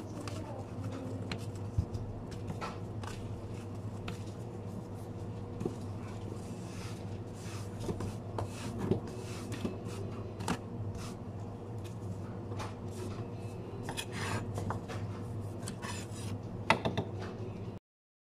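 Sushi prep at a counter: scattered light clicks, taps and rubbing as a knife, cloth and plastic containers are handled, over a steady low hum of kitchen equipment. The sound cuts off abruptly near the end.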